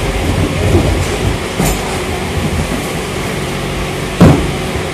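Forklift running with a steady mechanical hum and low rumble while it carries a load of cartons. A sharp, loud knock comes about four seconds in.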